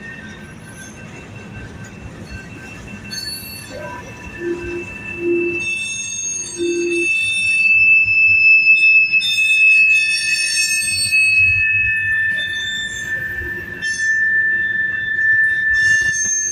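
Freight grain train rolling past, its wheels squealing against the rails in several steady high-pitched tones over the rumble of the cars, getting louder partway through.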